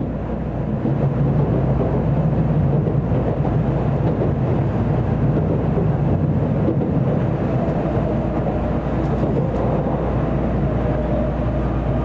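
Steady running noise inside a Tokaido Shinkansen passenger car at speed: a low rumble under an even rush of air and track noise.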